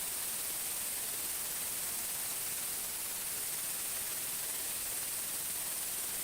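A steady, even hiss, strongest in the highs, with a faint thin high whine running through it.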